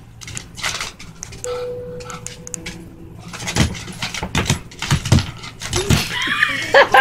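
A pug's claws clicking and scrabbling on a hardwood floor as it dashes after a laser dot, with a jingle like collar tags. A person starts laughing near the end.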